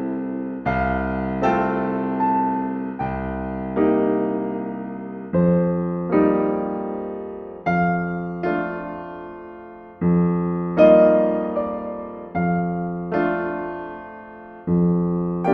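Slow, gentle solo piano music: soft chords struck every second or two, each ringing on and fading before the next.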